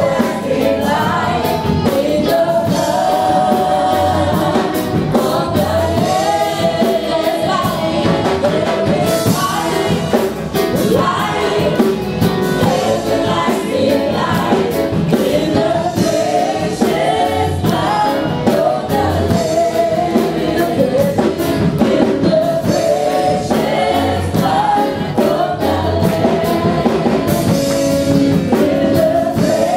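Live gospel music: a church band and choir singing together, with drums keeping the beat.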